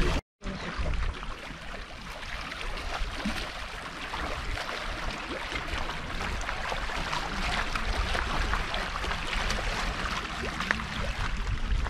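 Water lapping and splashing steadily, a rushing wash flecked with small crackles over a low rumble, after a brief dropout just after the start.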